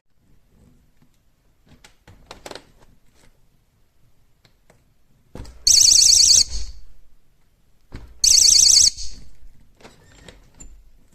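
VOXON magnetic door and window alarm sounding two short bursts of a loud, high-pitched warbling tone, a couple of seconds apart, each cut off abruptly. Small clicks and knocks from handling come between them.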